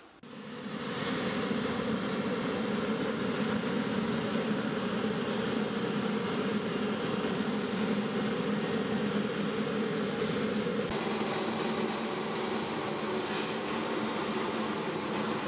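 MV-22 Osprey tiltrotor running on the ground before takeoff: a steady turbine whine and hum that fades in over the first second and takes on a brighter hiss about eleven seconds in.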